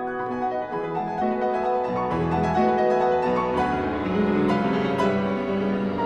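Background music: a piano playing a classical-style piece, many notes in succession.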